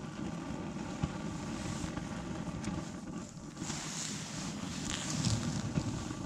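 Steady rushing background noise, with a soft click about a second in and faint rustling as a small perch is unhooked by hand.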